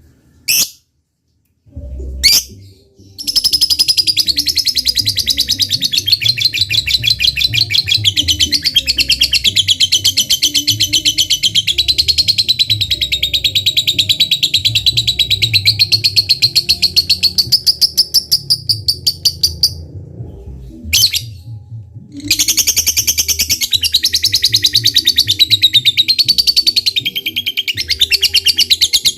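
Lovebird giving its long 'ngekek' chatter: a very fast, unbroken string of high, harsh chirps. After two short calls at the start, one bout runs for about sixteen seconds, breaks off briefly, and starts again about 22 seconds in.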